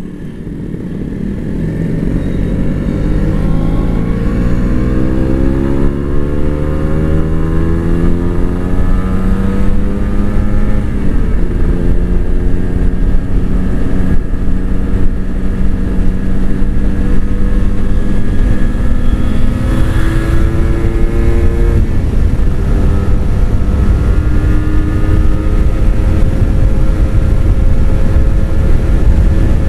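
Two-stroke 150 cc Kawasaki Ninja motorcycle engine pulling under hard acceleration. Its pitch climbs for about ten seconds and drops at a gear change, then it runs steady, dips briefly about two-thirds through, and climbs slowly again.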